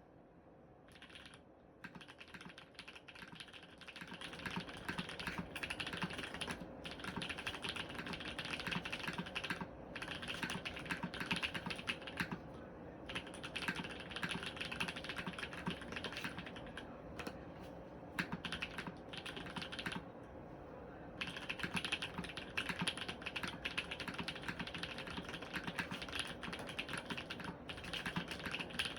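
Typing on an Orion V3 mechanical keyboard with lubed Holy Panda tactile switches, an FR4 plate and GMK keycaps: quick, continuous keystrokes. The typing starts with a few scattered presses about a second in, becomes steady, and stops briefly a few times, longest about two-thirds of the way through.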